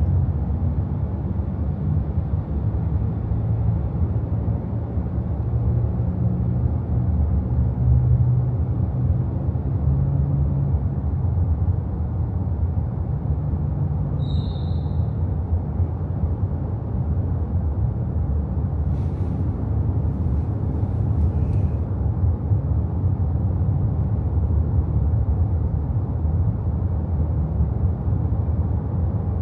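A car driving steadily through a road tunnel: a continuous low rumble of engine and tyres, with a brief high chirp about halfway through.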